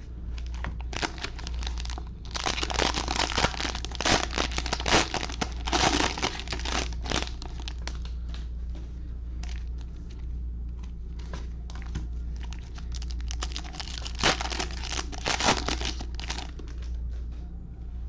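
Plastic cello-pack wrapper of 2020 Panini Mosaic football cards crinkling and tearing as it is ripped open by hand. The crackling is densest from about a second in to about seven seconds, with another burst around fourteen to sixteen seconds.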